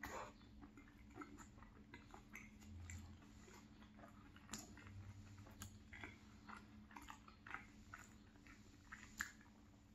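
Faint, close-miked chewing of a mouthful of salmon pie: soft, scattered wet mouth clicks and smacks.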